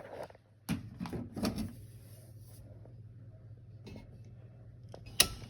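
Faint hiss of air escaping through an electric water heater's opened pressure relief valve as the tank fills, bleeding trapped air from the tank, over a steady low hum. A few sharp clicks, the loudest near the end.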